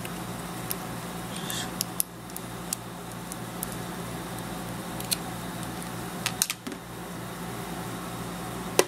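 Light plastic clicks and rustling as an iPad's white USB power adapter and charging cable are handled and the cable's USB plug is pushed into the adapter, over a steady low hum.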